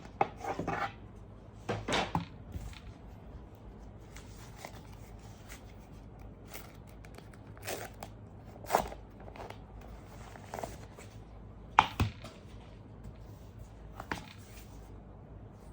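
Handling noises from unboxing: scattered taps, clicks and rustles of packaging and accessories being handled, with the sharpest click about twelve seconds in.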